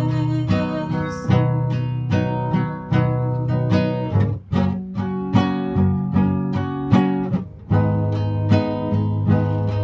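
Acoustic guitar strummed in a steady rhythm of chords, about two strokes a second, with short breaks about halfway through and about three-quarters of the way through.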